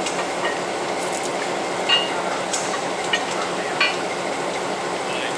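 Steady running noise of an idling locomotive, with a few sharp metal clinks as a worker handles the coupler bar and chain between the locomotive and a tender.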